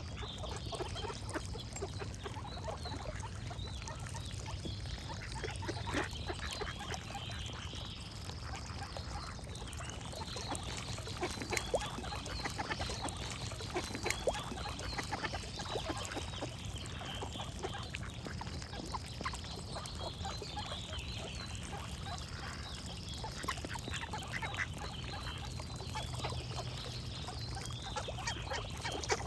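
Ducks quacking and geese honking in scattered calls, with other birds calling. A high steady note sounds for about a second and a half, repeating roughly every three and a half seconds, over a steady low hum.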